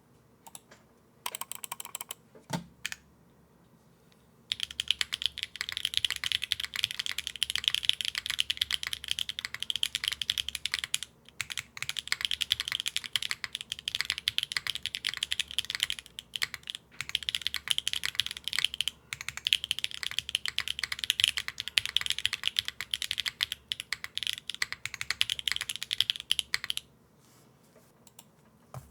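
Typing on a Neo Duo Core mechanical keyboard with Cilantro switches, GMK keycaps and no foam inside the case: fast, steady keystrokes. The typing starts about four seconds in, breaks off briefly a few times, and stops shortly before the end.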